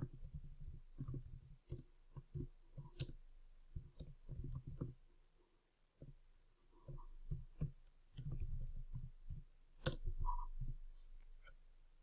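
Typing on a computer keyboard: irregular runs of key clicks and soft thumps with short pauses, and one sharper click about ten seconds in.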